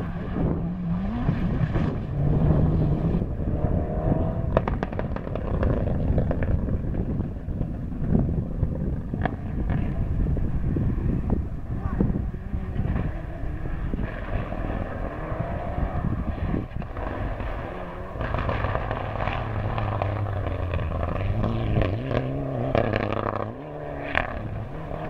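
Rally cars racing flat out on a gravel stage, their engines revving up and falling back through gear changes, with a few sharp cracks.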